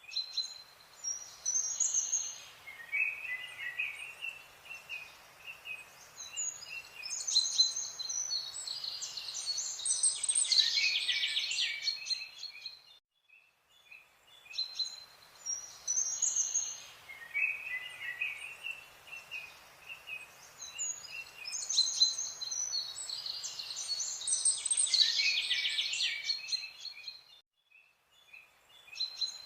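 Small birds chirping and trilling in high notes over a faint outdoor hiss, a stretch of about 13 seconds of birdsong that plays twice, like a looped nature-ambience track.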